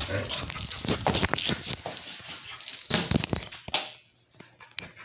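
Scuffling, rustling and short knocks from a puppy at play and a phone being jostled against couch fabric, dropping almost to quiet about four seconds in.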